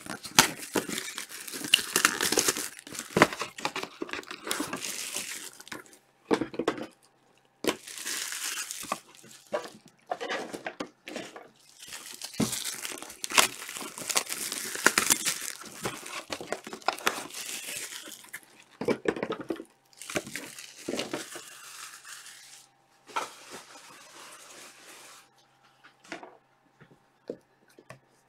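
Panini Chronicles soccer trading-card boxes being torn open and handled: plastic wrapping crinkling and cardboard tearing, with small knocks, in busy stretches broken by short pauses.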